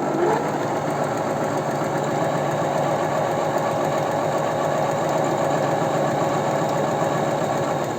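Janome Sewist 509 electric sewing machine running fast and steadily, coming up to speed in the first moment. This is a test run with the upper thread tension set to 1.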